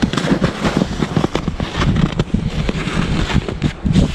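Wind buffeting the camera microphone: a low rumble broken by dense, irregular crackles.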